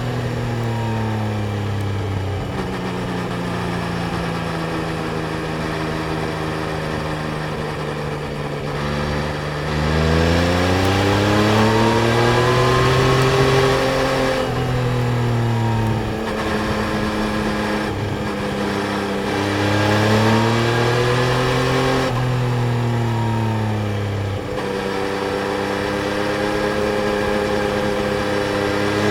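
Yamaha Tracer 900 GT's inline three-cylinder engine under way. Its note sinks slowly for the first nine seconds or so, then climbs under throttle. Pitch drops suddenly a few times, and the note settles steady near the end.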